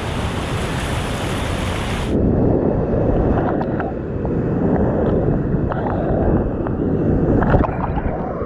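Whitewater rapids rushing and churning close around a kayak, with splashes against the hull and paddle. About two seconds in the sound turns duller and a little louder as the boat drops into the foaming water.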